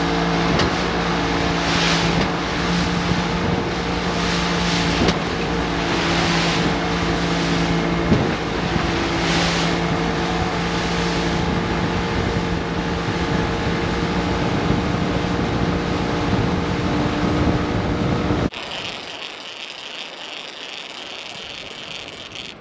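A fishing boat's engine running steadily under way, with wind and water rushing past and brighter surges about every second or so as the hull meets the waves. About eighteen seconds in, it cuts off abruptly to a much quieter background.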